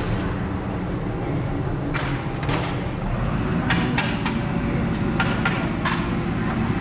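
A heavy engine or machinery running with a steady low rumble, with a series of metal clanks and knocks from about two seconds in and a brief high squeal near three seconds.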